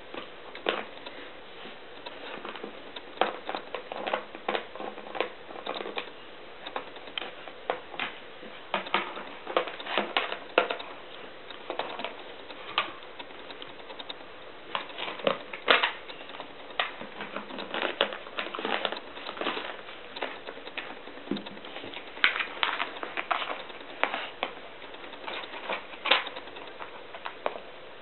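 Pit bull puppy chewing a pink plastic frisbee: irregular clicking and crackling of teeth on the plastic, with some louder snaps.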